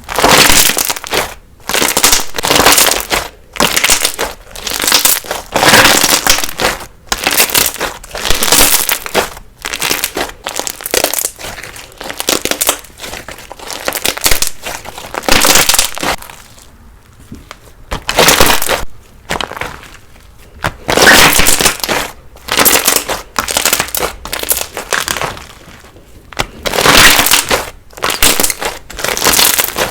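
Crunchy slime squeezed and pressed by hand, crackling and crunching in repeated loud bursts about once a second, with a couple of short pauses.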